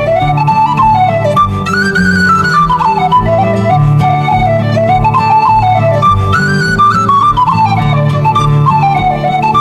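Background music: a stepwise melody that rises and falls in repeated phrases over steady low chords and a light, regular beat.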